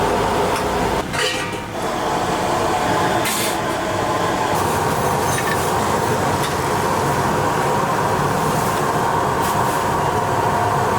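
Commercial kitchen noise: a steady roar with a few short metallic clinks, about a second in and again a little after three seconds.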